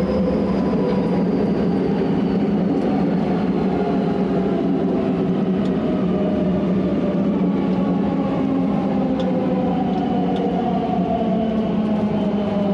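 JR 207 series electric train (set T17), its traction inverter and motors whining over the rumble of wheels on track. Several tones glide slowly down in pitch together as the train slows. This car's inverter is known for an unusual noise.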